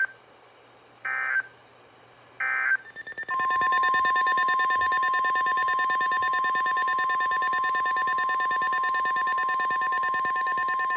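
Three short screeching digital data bursts of an EAS/SAME end-of-message code. About three seconds in, a loud alert tone sets in: a steady tone near 1 kHz (the Weather Radio 1050 Hz warning alarm) with a rapid electronic pulsing over it, sounding the next warning.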